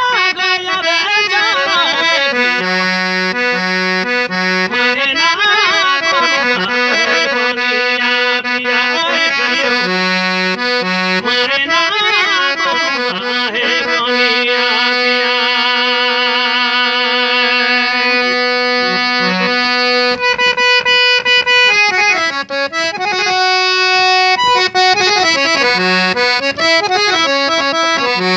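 Harmonium playing a folk-song melody over a steady held drone note, with no singing; the drone drops out briefly about twenty seconds in before the playing resumes.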